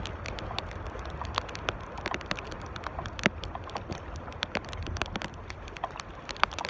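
Strong wind buffeting the microphone as a steady low rumble, with many small irregular clicks and crackles scattered through it.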